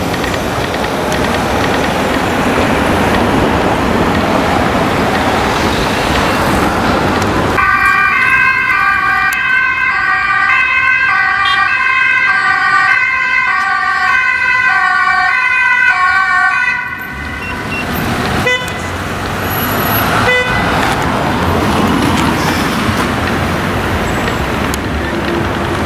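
Dutch ambulance two-tone siren alternating between a high and a low note. It starts about a third of the way in and cuts off after about nine seconds. Before and after it there is a steady rush of city traffic.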